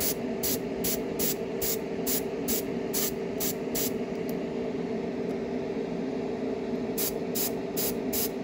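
Dual-action airbrush hissing in short, evenly spaced bursts of air and paint, about three a second. The bursts stop for about three seconds midway and then resume. Under them runs a steady motor hum from the compressor or spray-booth fan.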